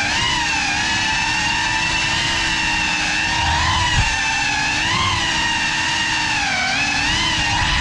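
GEPRC Cinelog35 cinewhoop FPV drone's motors and ducted propellers whining, the pitch rising and falling with the throttle, with one small knock about halfway through.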